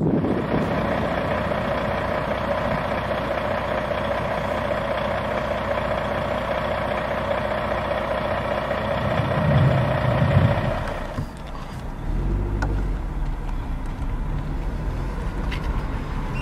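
Car engines idling, a steady hum with a brief louder low rumble near ten seconds in. About eleven seconds in it changes to a deeper, quieter idle rumble.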